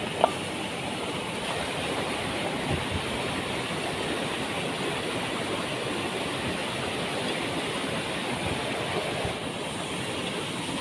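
Waterfall rushing steadily, a constant roar of falling water. A short high ping sounds once right at the start.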